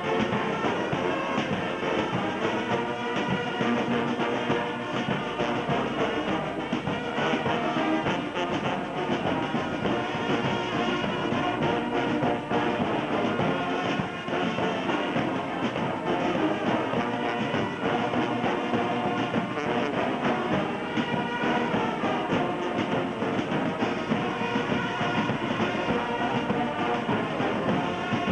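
Band music with brass instruments, playing continuously without a break.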